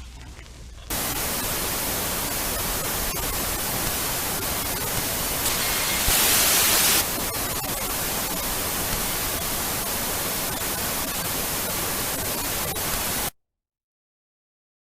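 A faint low rumble for about a second, then loud, steady static hiss like a dead broadcast signal switches on suddenly. It grows brighter for about a second midway and cuts off abruptly near the end into total silence.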